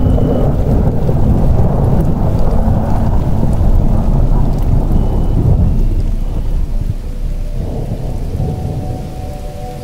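Rolling thunder over steady rain, a loud low rumble that dies away over the last few seconds as soft ambient music tones come back in.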